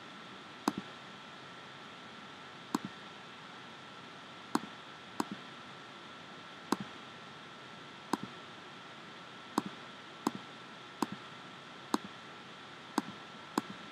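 About a dozen computer pointer-button clicks at irregular intervals of one to two seconds, each a sharp press followed quickly by a softer release click. Under them is a steady hiss with a faint high steady whine.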